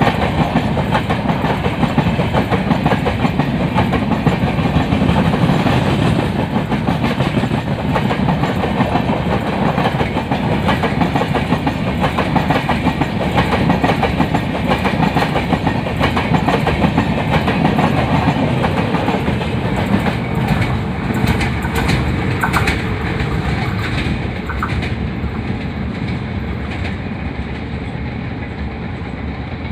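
Train of LHB passenger coaches rolling past, steel wheels clattering rhythmically over the rail joints, with a dense rumble beneath. The sound eases off over the last few seconds.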